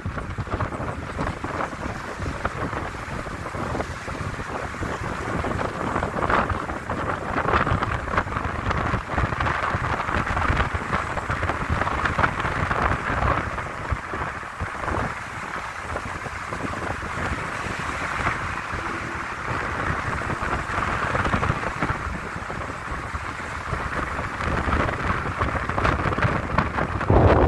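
Wind and road noise from a moving car: a steady rushing that rises and falls, with wind buffeting the microphone.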